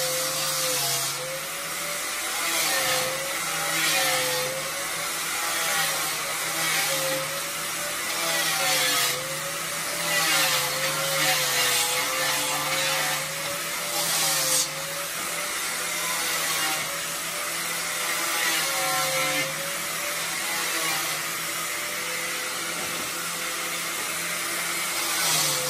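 A power tool running steadily on wood, its motor pitch wavering slowly up and down over a rough cutting hiss.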